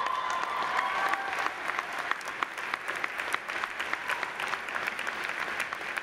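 Audience clapping in a large hall, with whoops and cheers over it during the first second or so, then steady applause that eases off slightly toward the end.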